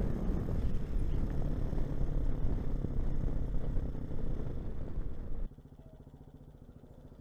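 Motorcycle riding noise, dense and loudest at the low end. It drops suddenly to a faint, steady low hum about five and a half seconds in.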